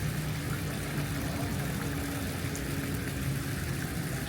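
A low, steady engine hum: a vehicle engine running at an even speed.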